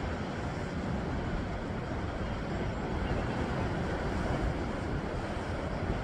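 Sea surf washing over shoreline rocks: a steady, unbroken rushing with no single wave standing out. A low, uneven rumble of wind on the microphone sits underneath.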